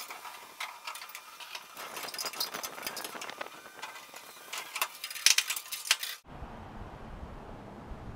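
Sped-up sound of a pole being pushed up along a sailboat mast: fast, dense clattering and clicking. It cuts off abruptly about six seconds in, and a low steady rumble follows.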